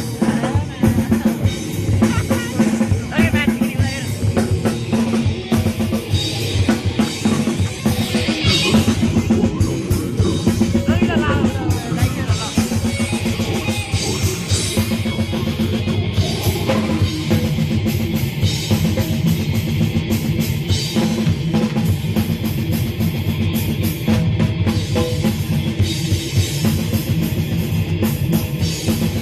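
A live rock band playing at full volume, driven by a drum kit with a pounding bass drum.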